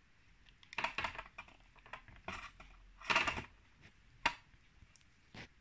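A knife and fork cutting into a baked apple cake, scraping and clicking against the baking tray in a few short strokes, the loudest a little past the middle.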